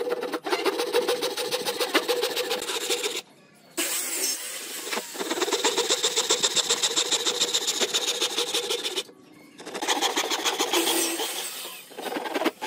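Handsaw cutting across a wooden board with quick, rhythmic back-and-forth strokes, sawing a row of kerfs for a notch. The sawing breaks off briefly twice.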